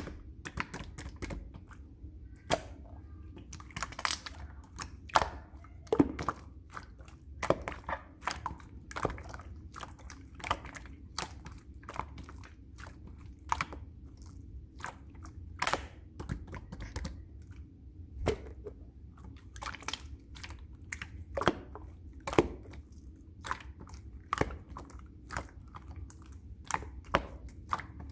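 Vanilla cream slime being pressed and squished by hand, giving irregular clicks and small pops, about one or two a second.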